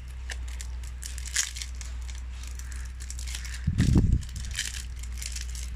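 Crinkling and rustling as a trading-card booster pack's wrapper and cards are handled, with a single dull thump about four seconds in.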